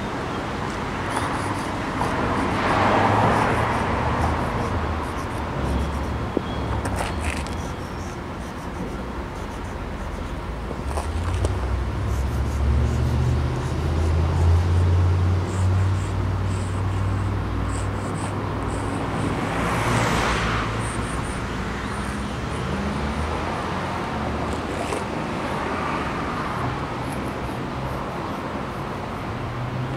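Street traffic: cars going past on the road, one about three seconds in and another about twenty seconds in, over a low rumble.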